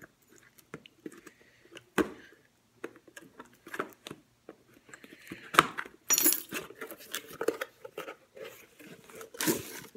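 Hands opening a cardboard box and handling the packaged plastic cups inside: irregular clicks, knocks and rustles, with a sharp knock about two seconds in and a short burst of crinkling packaging near the end.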